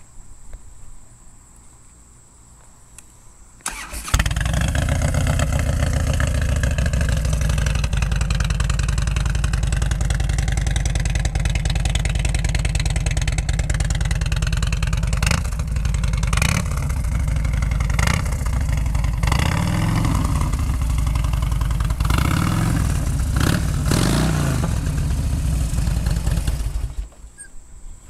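2005 Harley-Davidson Road King's 88-cubic-inch Twin Cam V-twin, on stock headers with Vance & Hines slip-on mufflers, cold-started after sitting about five days: it cranks and catches about four seconds in, then runs loud. It is revved briefly several times in the second half and shut off near the end.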